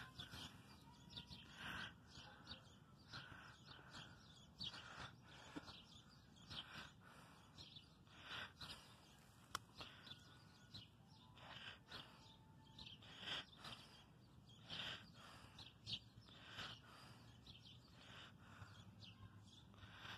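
Faint, regular heavy breathing close to the microphone, one breath every second or two, with a few faint bird chirps.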